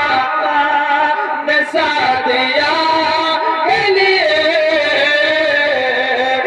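A man singing an Urdu devotional kalam through a microphone and PA, holding long notes that slide and turn ornamentally from one pitch to the next.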